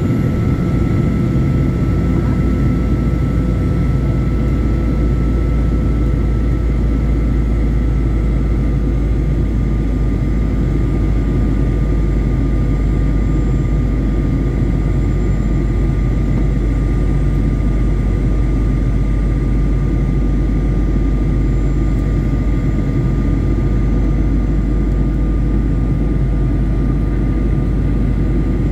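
Jet airliner cabin noise: a loud, steady engine and air rumble with a few faint steady whines over it, unchanging throughout.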